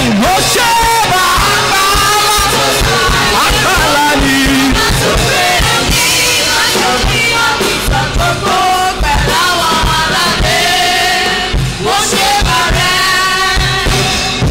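Live church praise music: sung voices with keyboard and a steady drum beat, a Yoruba praise song carrying on without a break.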